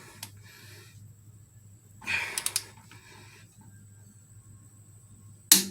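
Hand tools being worked on an engine's cylinder head bolts: a few sharp clicks with a short rustle about two seconds in, then one loud sharp knock near the end.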